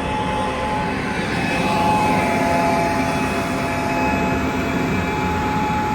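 Combine harvester running steadily at working speed: a loud engine and machinery rumble with several steady whining tones, like fan and drive whine.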